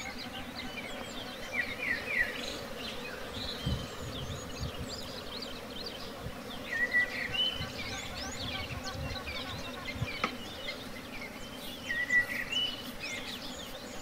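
Honeybees buzzing in a steady hum around an open hive as frames are lifted out and shaken. Birds chirp and whistle over it, loudest about two, seven and twelve seconds in.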